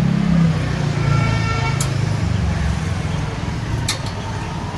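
Motor vehicle engine running with a steady low drone, with street traffic around it. A short horn-like tone sounds about a second in, and there are two sharp clicks.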